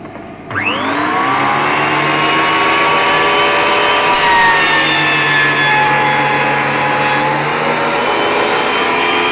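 A benchtop thickness planer's motor and cutter head start up about half a second in, the whine rising as it spins up to speed and then running steadily. From about four to seven seconds the knives bite into a melamine-faced board, taking a 1 mm pass, which adds a loud, higher-pitched cutting noise over the motor.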